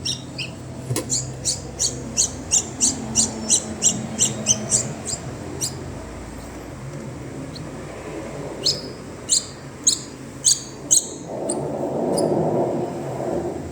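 Small bird chirping: a fast series of short, high chirps, about three a second, then a pause and a slower run of louder chirps. A low rumbling noise comes in near the end.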